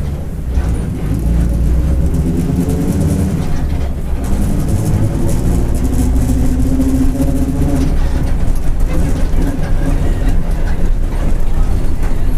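Mercedes-Benz OF-1722M bus under way: a steady low engine drone with the driveshaft (cardan) growling, and a whine that rises in pitch twice as the bus pulls away and picks up speed.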